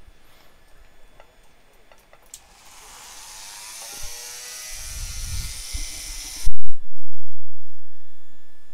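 Small electric rotary tool fitted with a diamond burr spinning up: a whine that rises in pitch with a high hiss, growing louder over about four seconds. About six and a half seconds in comes a very loud pop, the sound drops out, and a low tone fades away, as when the microphone is switched off.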